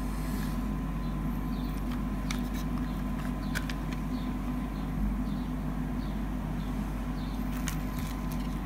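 Plastic CD jewel case being handled and opened, giving a few light clicks, over a steady low background hum.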